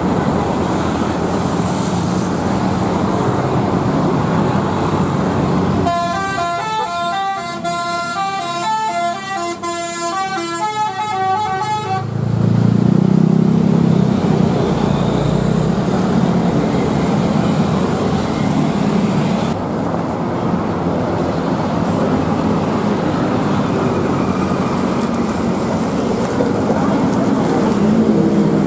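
Street traffic with motorcycles and a bus. About six seconds in, a bus's multi-tone musical "telolet" horn plays a stepping tune for about six seconds, then a loud, low bus engine pulls away.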